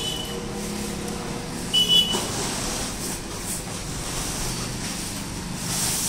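Cardboard refrigerator carton being lifted up off the fridge, its packing rubbing and giving short high squeaks, the loudest about two seconds in and again near the end, over a steady low hum.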